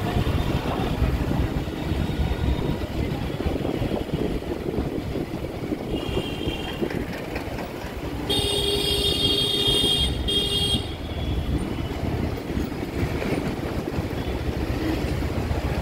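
Steady rumble of a two-wheeler riding through city traffic, engine and wind noise. A vehicle horn sounds for about two and a half seconds some eight seconds in, with a shorter, fainter honk a couple of seconds before.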